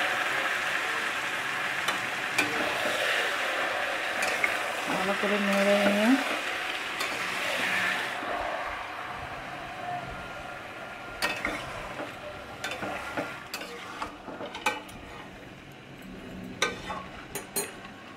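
Marinated mutton and onions sizzling in hot oil in a steel kadai while a flat spatula stirs them. The sizzle is loud for the first eight seconds or so, then dies down, leaving the spatula clicking and scraping against the metal pan.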